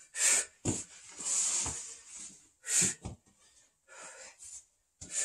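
A man's sharp, forceful exhalations, about one a second, breathed out with each crunch, with a few soft thumps of his body on foam floor mats.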